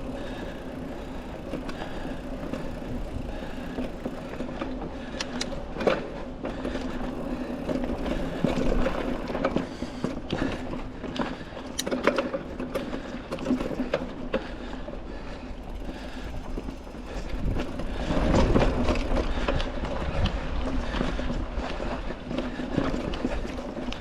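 Mountain bike rolling along a dirt trail on knobby tubeless tyres: a steady rolling hum with scattered rattles and knocks from the bike over roots and bumps, and a louder, rougher stretch about three-quarters of the way through.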